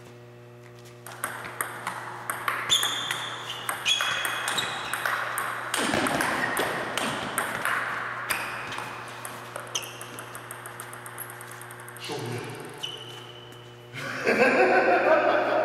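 Table tennis rally: a quick run of sharp ticks as the ball strikes the paddles and the tabletop. It starts about a second in and stops about twelve seconds in, and some hits leave a short high ping.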